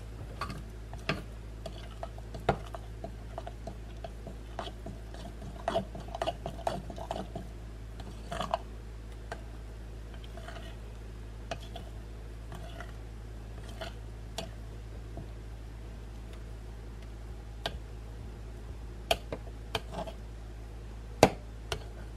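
A metal spoon stirring a thick batter in a glass jar: irregular soft scrapes and clinks of spoon against glass, busiest a quarter of the way in, with a few sharper clinks near the end. A steady low hum runs underneath.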